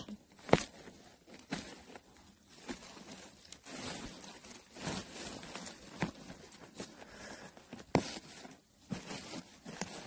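Dry pine needles and soil crackling and rustling as a gloved hand clears and digs around a pine mushroom, with irregular sharp snaps; the loudest comes about half a second in, another near the end.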